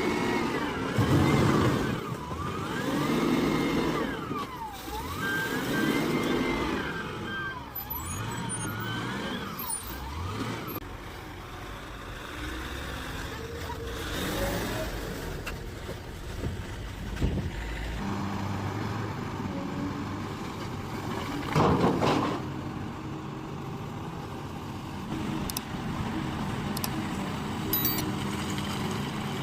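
Heavy earth-moving machinery running with diesel engines under load. A whine rises and falls over and over for about the first ten seconds. A short loud burst of noise comes about twenty-two seconds in.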